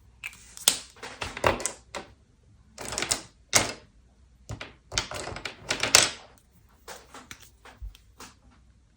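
A pen scratching on paper in quick drawing strokes: three bursts of strokes, then fainter short ticks near the end.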